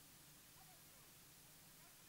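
Near silence: faint steady hiss with a few faint, short chirp-like calls.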